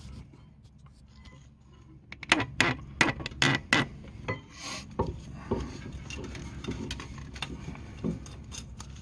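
A stiff wire clicking and scraping against a brake caliper and the suspension metal as it is threaded through to hang the caliper. A quick run of sharp metallic clicks comes about two seconds in, followed by a few scattered taps.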